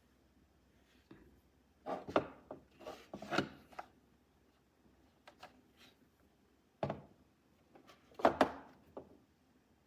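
Irregular handling noises, rubbing, scraping and knocking of small objects, coming in two clusters, about two seconds in and again about seven seconds in.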